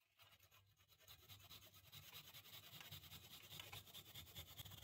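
Handsaw cutting across a wooden dowel held in a vise: faint, quick back-and-forth rasping strokes that grow steadier after about a second.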